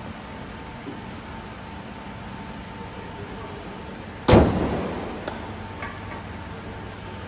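Toyota Camry's hood being closed: one loud bang about four seconds in, with a short ringing decay, then a lighter click about a second later, over a steady workshop hum.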